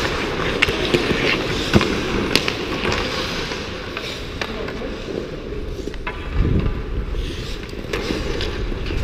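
Hockey skates scraping and carving on the ice, with sharp clacks of sticks and puck, most of them in the first three seconds. A brief low rumble comes about six and a half seconds in.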